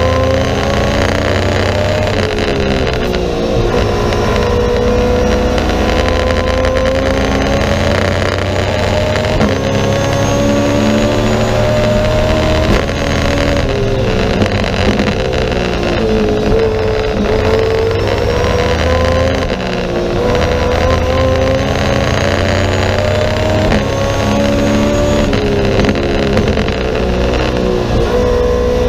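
BMW M3 E90 race car's V8 engine at full throttle, heard from inside the stripped cockpit. It revs up through each gear, the pitch climbing steadily and then dropping at each gear change, several times over.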